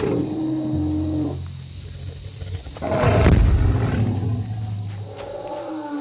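Two male Indricotherium calling as they fight. The calls are low and drawn-out, with a louder, harsher call about three seconds in.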